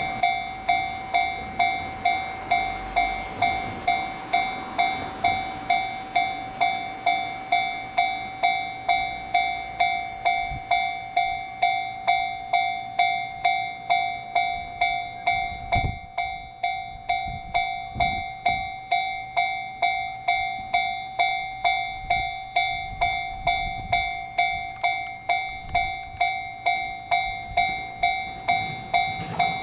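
Japanese level crossing warning bell ringing steadily, about one and a half strikes a second. From about halfway a train runs over the crossing, its low wheel rumble under the bell.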